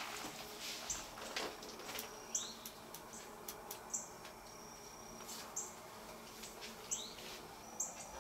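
Faint outdoor wildlife ambience: short high chirps repeating every second or so, some with a quick rising slide, over soft scattered clicks and a brief thin high buzz midway.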